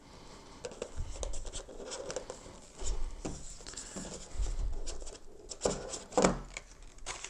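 Cardboard box being opened and its contents handled: irregular scraping, rustling and light taps of cardboard and plastic packaging, with a few soft thumps.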